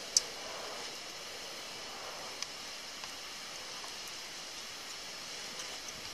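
Steady hiss of wind, with a sharp click just after the start and a fainter one about two and a half seconds in as a plastic water bottle is opened and handled.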